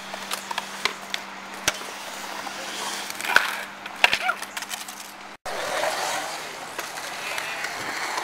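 Skateboard wheels rolling on a concrete skatepark bowl, with many sharp clicks and a few louder clacks. A little past halfway the sound drops out for an instant at an edit, and a denser rolling rush follows.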